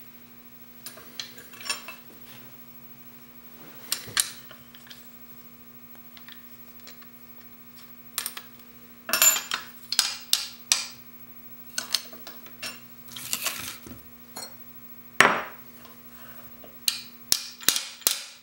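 Metal sharpening jig with a chisel clamped in it being handled and adjusted: scattered metallic clinks, taps and short scrapes, busier in the second half with one louder knock, over a faint steady hum.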